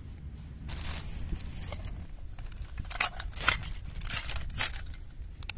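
Rustling and handling noise with a few sharp clicks, as small metal utensils are pulled from and slipped into a fabric hanging storage pocket. The clicks come in a cluster in the second half.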